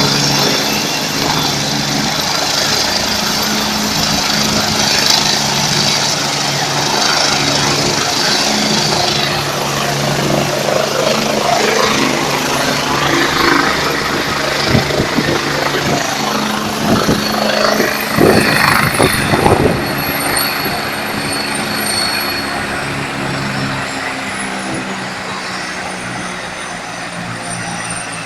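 Helicopter running close by: a steady low rotor and engine drone with a high turbine whine that falls in pitch over the second half. A few loud irregular buffets come about two-thirds of the way through.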